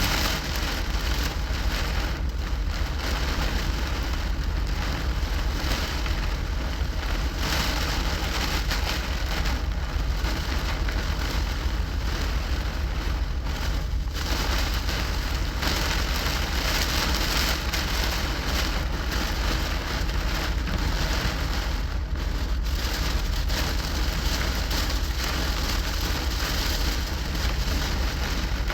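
Heavy rain pouring down on a semi truck during a thunderstorm, a steady even roar with a constant low rumble underneath.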